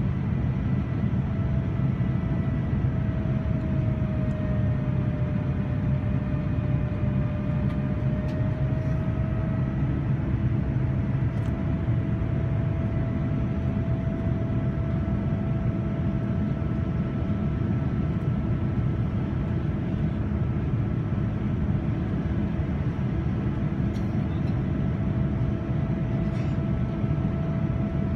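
Steady cabin roar of a Boeing 787-9 in flight, heard from a window seat, with its GEnx-1B engines' steady whine on top. The whine sags slightly in pitch a few seconds in and settles back about ten seconds in.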